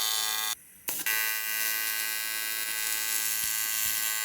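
A steady electric buzz at one even pitch. It cuts out about half a second in and starts again with a click around a second in.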